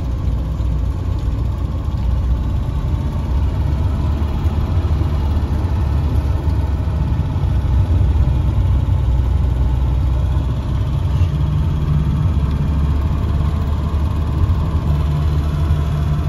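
Engine and road noise of a moving car heard from inside its cabin: a steady low drone.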